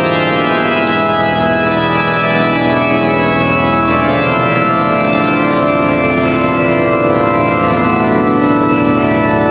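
The Grand Organ of Notre Dame Cathedral playing loud, sustained full chords, many pipes sounding together as the harmony shifts slowly, heard inside the cathedral.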